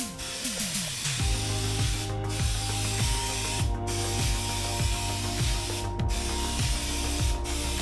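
Aerosol spray-paint can hissing in steady passes, with four short breaks between passes. Background music with a steady beat runs underneath.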